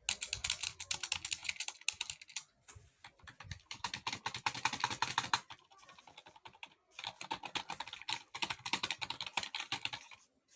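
Fast typing on a computer keyboard: rapid runs of key clicks, with a pause of about a second and a half midway, stopping just before the end.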